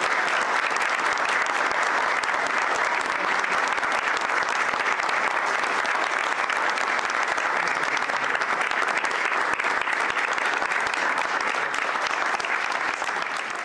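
A group of people applauding, a steady patter of many overlapping hand claps that thins slightly near the end.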